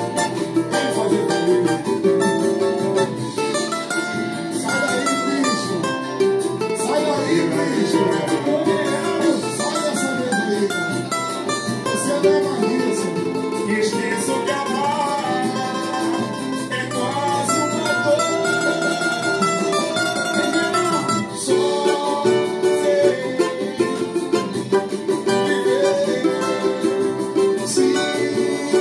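Cavaquinho strummed fast in a samba rhythm, picking out a moving melody line over its chords.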